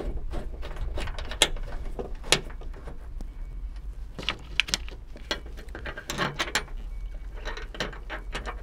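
Scattered small metallic clicks and taps as bolts are threaded by hand into the hinges of a Honda Civic trunk lid, over a steady low rumble.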